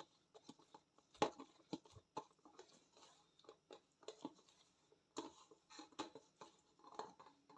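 Hands kneading soft, sticky yeast dough in a bowl: faint, irregular squishing and light pats.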